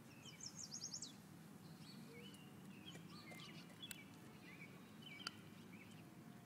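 Faint small birds chirping and calling, with a quick run of falling chirps near the start. Two sharp clicks, about four and five seconds in.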